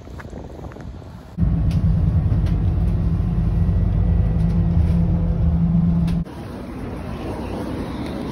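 Steady low drone of a vehicle's engine heard from inside the cabin. It cuts in abruptly about a second and a half in and cuts off abruptly a little after six seconds, giving way to quieter outdoor noise.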